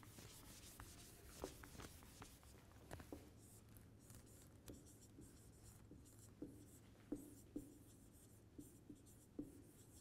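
Faint squeaks and taps of a marker writing on a whiteboard, with a duster wiping the board near the start.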